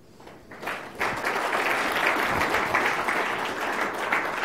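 Audience applauding: many hands clapping together, starting about a second in and holding steady.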